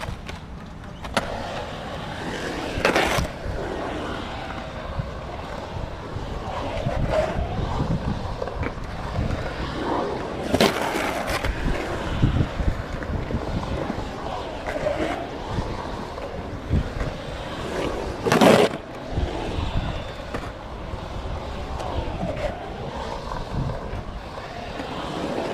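Skateboard wheels rolling and carving around a concrete bowl, the wheel roar swelling and fading as the rider passes, with three loud sharp clacks of the board.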